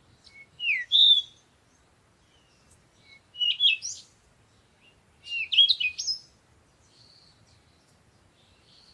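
Songbirds singing in the morning: three short phrases of quick, gliding whistled notes with pauses between them, then only faint high chirps.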